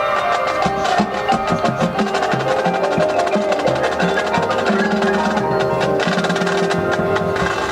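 Marching band playing, with a fast, busy percussion passage of drum hits and sharp wooden clicks over held notes from the winds and front ensemble. The clicks thin out near the end.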